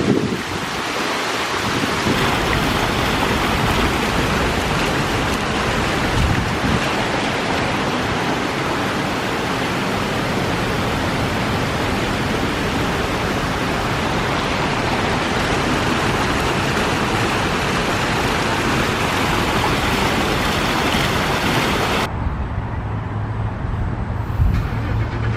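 Water rushing steadily down an artificial waterfall in a plaza fountain, a loud, even hiss. About three seconds before the end it cuts off suddenly, giving way to a duller, steady low hum of distant traffic.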